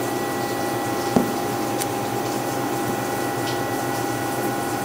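Small CNC milling machine running, its spindle and motors giving a steady whine and hum, with one sharp tick about a second in.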